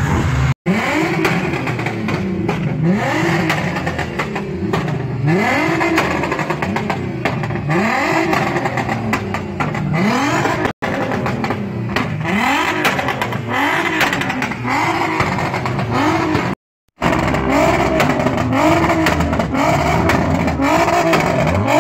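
Car engines being revved in quick repeated blips, the pitch rising and falling about once a second, with a few brief cut-outs.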